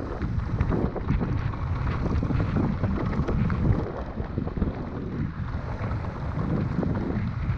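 Wind buffeting the microphone of a camera riding along on a mountain bike, over a steady rattle of the bike bouncing across a rough gravel track.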